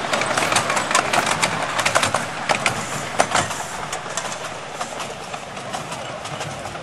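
A 7¼-inch gauge miniature railway train's wheels clicking and clattering over the track as its ride-on carriages move past close by. The clicks are thick and irregular at first, then thin out and fade as the train draws away.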